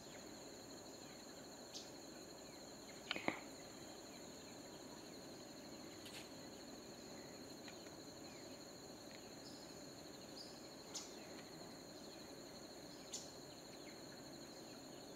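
Faint outdoor ambience: a steady, high-pitched insect drone at two pitches over a low hiss, with a few soft clicks, the loudest about three seconds in.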